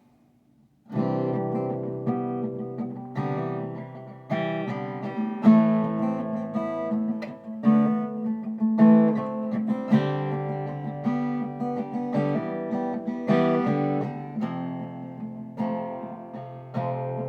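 Acoustic guitar strumming chords, starting about a second in.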